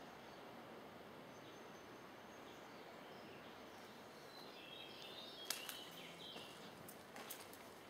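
Faint outdoor ambience with a few bird chirps, then several sharp clicks from about five and a half seconds in.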